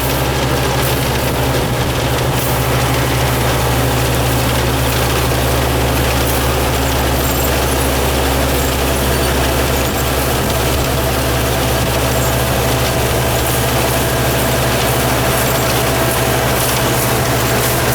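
Yanmar combine harvester running steadily at a constant engine speed, its engine and working machinery making an even drone.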